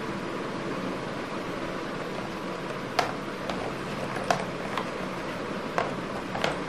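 Steady background hiss and hum, with about six short, sharp clicks or taps spread through the second half.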